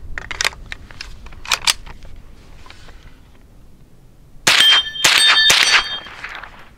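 Light clicks and knocks, then about four and a half seconds in two or three loud metallic strikes, each ringing on in clear steady tones for about a second and a half, like metal being struck.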